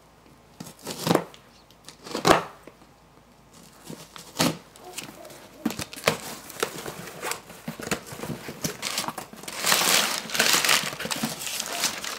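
A shipping package being torn open and unpacked: rips and rustles of the mailer and cardboard box. A few separate sharp tears come early, then denser crinkling of crumpled paper packing near the end.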